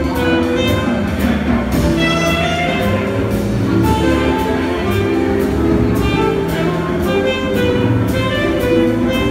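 Small live jazz combo playing: a horn carries the melody in held notes over keyboard, bass and drums, with a steady cymbal beat.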